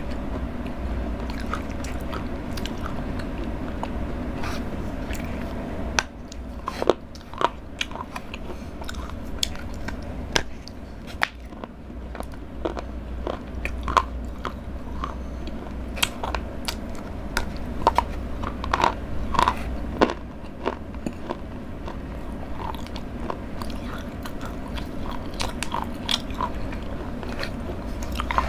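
Close-miked biting and chewing of Cadbury Dairy Milk chocolate, with sharp irregular crunches that come more often after about six seconds, over a steady low hum.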